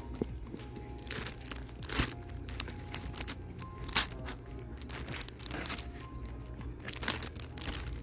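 Plastic comic-book bags crinkling and rustling several times as bagged comics are flipped through in a cardboard box, over quiet background music.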